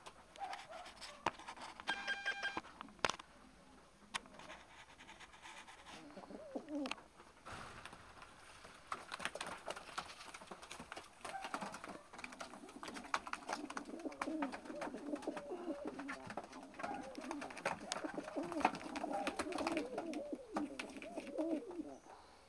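Domestic pigeons of the Romanian gulerați (ruffled-collar) type cooing. The coos overlap and grow busier from about halfway. Scattered light taps and clicks from the birds moving run through it.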